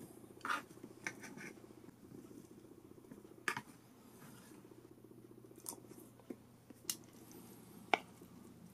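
Chopsticks scraping through cooked rice and clicking against the aluminium Trangia TR-210 mess tin and a metal cup: a handful of sharp single clicks spread out, the loudest near the end, over a low steady hum.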